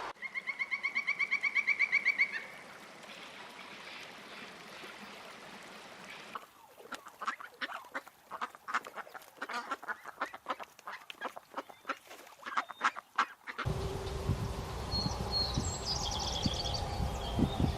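Birds calling in three separate bursts: first a fast, loud pitched trill of about seven notes a second lasting two seconds, then a long run of short, sharp, rapid calls, then high chirps over a low rumble near the end.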